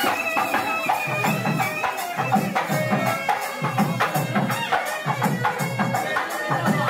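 Traditional festival music: a reedy wind instrument holds a melody over a steady drum beat, with sharp rattling strokes.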